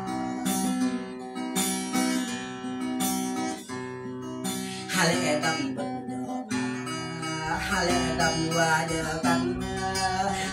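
Acoustic guitar strummed in repeated chords, with a voice singing over it from about halfway through.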